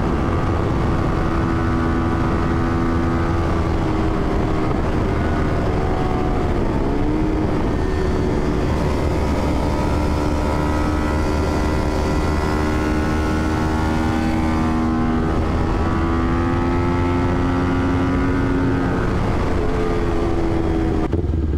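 Kawasaki Ninja 400's parallel-twin engine through a full aftermarket exhaust with the catalytic converter removed, running under way at steady revs. The pitch dips and recovers about a third of the way in, then climbs gradually and drops near the end, over a steady low wind rumble on the microphone.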